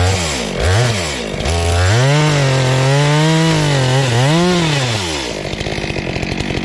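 Stihl two-stroke chainsaw blipped twice from idle, then held at high revs for about four seconds, its pitch dipping and rising once, before dropping back to a steady idle.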